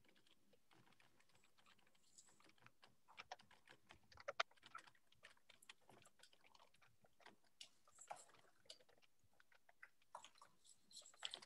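Faint computer keyboard typing: irregular runs of key clicks, heard over a video call.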